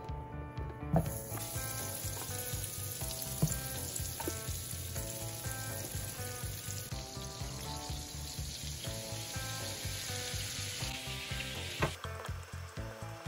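Butter melting and sizzling in a hot frying pan. The sizzle starts about a second in as the cubes land and drops away near the end, with a few sharp knocks along the way, over soft background music.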